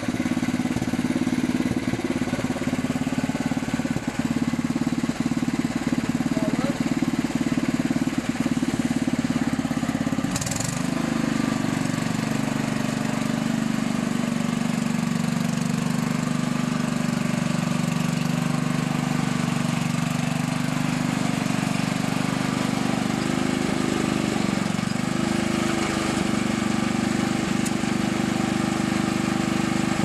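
Lawnmower engine running steadily while pulling a plough through garden soil. About ten seconds in there is a brief click and the engine note changes, then it runs on evenly.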